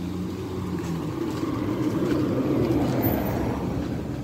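A vehicle passing by: its rumbling noise swells to a peak about two to three seconds in, then fades away.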